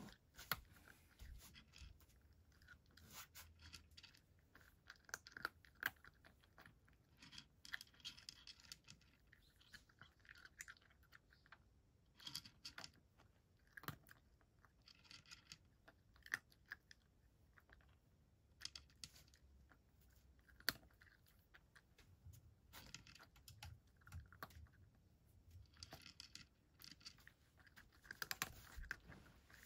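Cat eating dry kibble from a dish: bursts of crunchy chewing and sharp clicks, with short pauses between mouthfuls.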